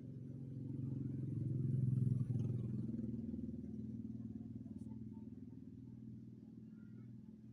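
A vehicle engine passing by, growing louder to a peak about two seconds in, then slowly fading.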